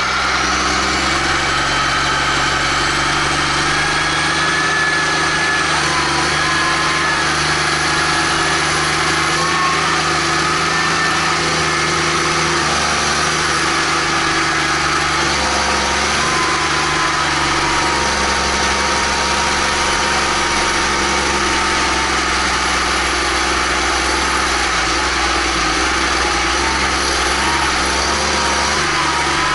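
Case IH Magnum 310 tractor's six-cylinder diesel engine running steadily, heard close to its vertical exhaust stack, with a thin whine that wavers slightly in pitch.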